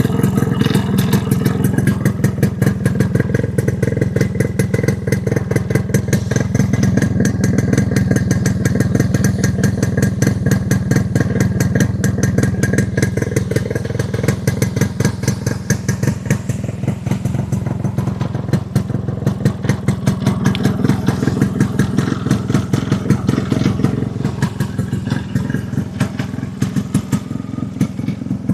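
1987 Yamaha RX100's 98 cc two-stroke single-cylinder engine running through its original, unaltered silencer, with a rapid, even exhaust beat.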